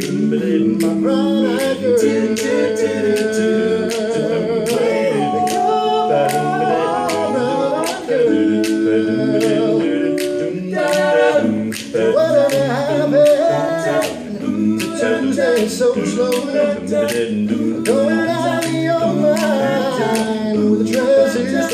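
Barbershop quartet of four men singing a cappella in close four-part harmony, with sustained chords. Sharp clicks come about twice a second under the singing.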